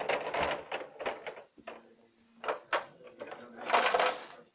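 Plastic Bruder toy dump truck being handled: scattered clicks and knocks of hard plastic, with a longer rattle near the end as its tipper bed is lifted by hand.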